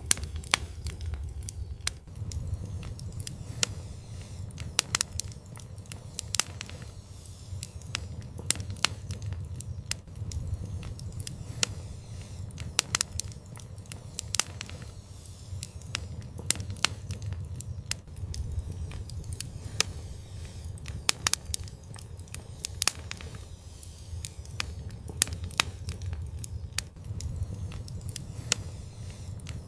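Fire in an outdoor fireplace, crackling with many irregular sharp pops over a steady low rumble of the flames.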